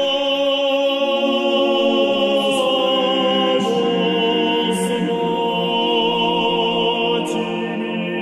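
Background music: slow sung chant, several voices in harmony holding long notes that shift to new pitches every second or two.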